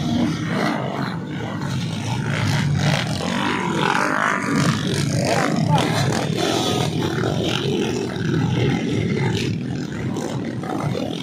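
Several dirt bike engines revving and running together as the bikes labour through deep mud, with pitch rising and falling as riders work the throttle.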